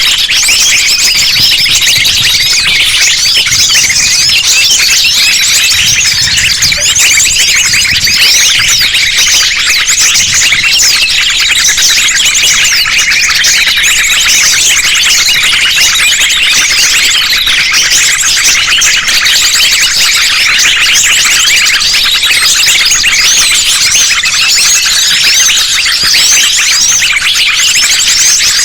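Dense chorus of small songbirds, sunbirds among them, many high chirps and rapid trills overlapping without a break: a looped bird-lure recording mixed to draw small birds down for trapping.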